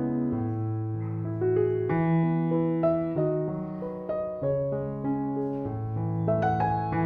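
Background music: a slow piano piece of sustained notes and chords, changing every second or so.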